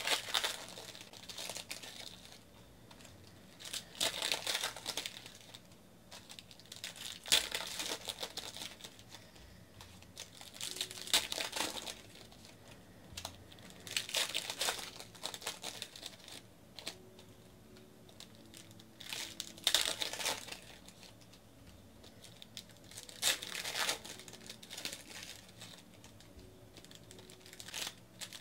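Foil wrappers of trading-card packs being crinkled and torn open by hand, in bursts of crackling every three to four seconds with quieter pauses between.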